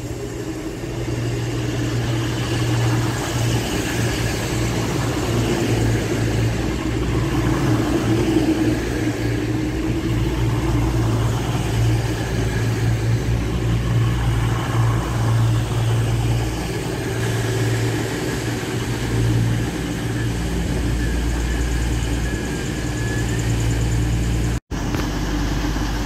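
Avanti West Coast Class 221 Super Voyager diesel-electric train running alongside the platform, its underfloor diesel engines giving a steady low drone with rumble from the train's passage. The sound drops out briefly near the end.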